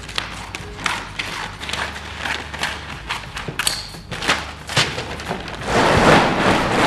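Stiff sailcloth crinkling and rustling as a large sail is handled on the floor, with scattered knocks and thumps of hands and knees. About six seconds in, the rustling turns louder and fuller as the cloth is crawled over.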